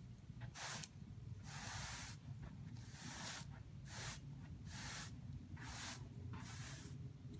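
A series of about seven short, faint hisses, each under a second long and roughly a second apart, over a steady low hum.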